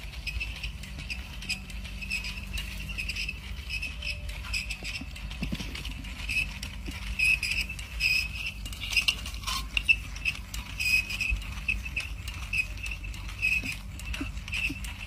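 A small battery-powered wheeled toy robot running, giving a regular high chirping squeak about two to three times a second over a low motor hum, with scattered light clicks and taps on the tile floor.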